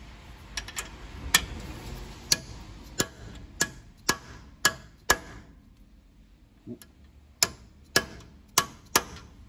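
A hammer striking a pipe spacer over a knuckle-arm stud bolt on a Toyota Prado 78's steering knuckle, driving the stud in: about a dozen sharp metallic taps, roughly two a second, with a pause of a second or two partway through.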